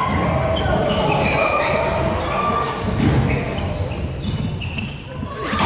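Badminton being played in a large echoing sports hall: sharp racket strikes on the shuttlecock and short shoe squeaks on the wooden court floor, with voices from around the hall.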